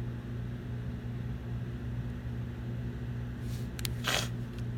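A steady low hum, with short scratchy drawing strokes on paper about three and a half and four seconds in, and a couple of light clicks near them.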